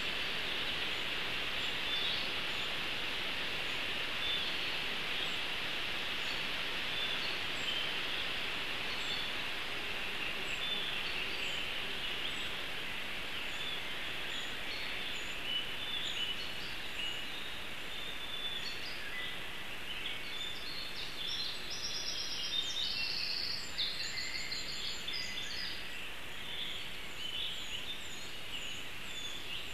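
Forest ambience: a steady hiss with small songbirds calling and singing, a burst of song busiest about two-thirds of the way through.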